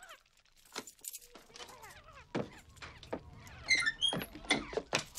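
Irregular clattering knocks and rattles with short high squeaks, busiest and loudest in the second half: a diner's glass door and something heavy being moved through it.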